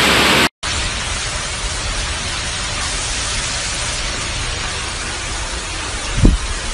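Hurricane-force wind and heavy rain, a steady rushing noise. About half a second in it drops out for an instant and comes back a little quieter. Near the end a gust buffets the microphone with a low thump.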